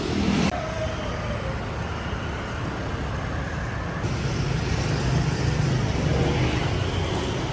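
City street traffic: motor vehicles running and passing in a steady rumbling wash of road noise.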